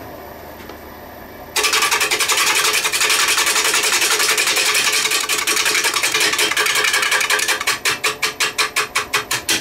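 Wood lathe running, then about a second and a half in a turning gouge bites into the spinning winged pine blank: a loud scraping cut with rapid ticking as the blank's wings meet the tool edge. Near the end the cut breaks into a fast pulsing.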